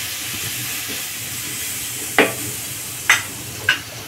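Ginger-garlic paste sizzling in mustard oil in an iron kadhai as a spatula stirs it on low flame, with three sharp clicks of the spatula against the pan about two, three and three and a half seconds in.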